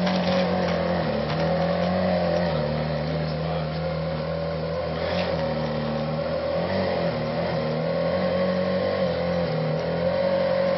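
Ferrari 458 Italia's 4.5-litre V8 engine running at steady, moderate revs, its pitch only wavering slightly.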